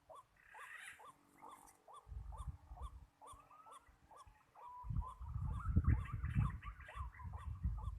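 White-breasted waterhen calls: a long run of short croaking notes, about three a second. A louder low rumbling noise comes in briefly at about two seconds and again through the second half.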